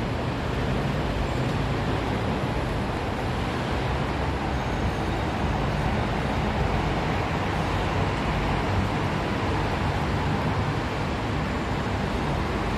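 Steady road traffic noise, an even rush with no distinct events.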